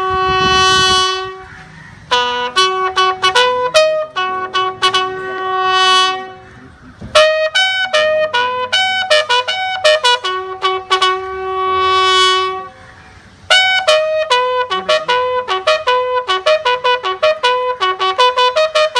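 A solo bugle sounding a ceremonial funeral call: long held notes alternating with quick runs of short repeated notes, with a few brief breaks between phrases.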